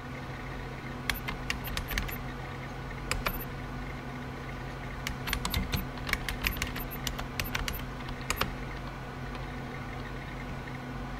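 Typing sound effect: irregular runs of sharp key clicks over a steady low hum. The clicks stop a little after eight seconds in.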